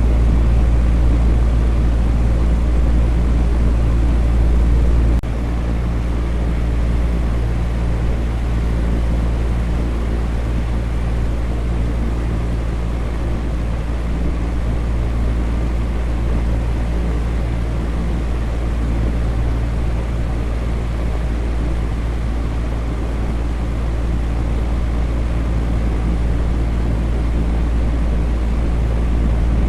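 Electric fan running steadily: a constant whoosh of moving air with a deep low rumble and a faint motor hum. The level drops slightly and suddenly about five seconds in, then holds steady.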